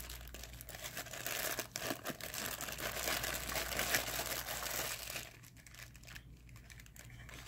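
Clear plastic bag crinkling and rustling in the hands as a small wall charger is worked out of it. The crinkling fades out about five seconds in.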